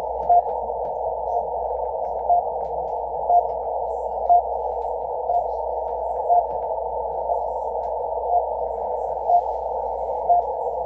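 RWM Moscow shortwave time signal on 14996 kHz, heard through a Yaesu FTdx10 receiver in CW mode with a narrow 500 Hz filter: short beeps once a second, the seconds pips, over steady band-limited hiss. Some pips come through louder than others.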